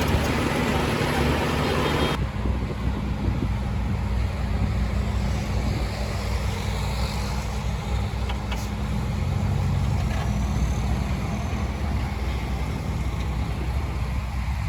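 Heavy diesel construction machinery running steadily with a low engine drone. A louder, noisier layer cuts off abruptly about two seconds in.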